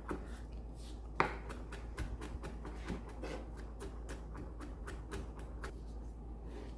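Kitchen knife rapidly mincing garlic cloves on a cutting board: a quick run of light chopping taps, several a second, with one harder strike about a second in.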